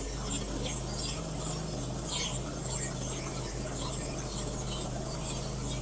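An engine running steadily at idle, a low even hum, with scattered light clicks and rubbing over it.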